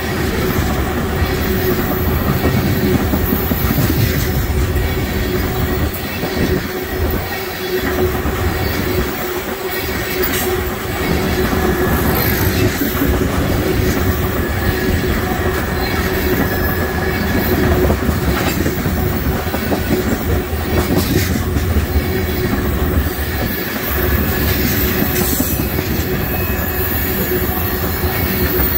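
Loaded railroad tank cars of a freight oil train rolling past close by: a steady rumble of steel wheels on the rails, with a thin steady wheel squeal and occasional clacks as the wheels cross rail joints.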